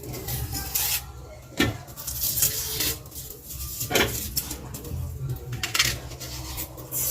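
Kitchen dishes and utensils being handled: a few sharp clinks and knocks with scraping and rubbing between them.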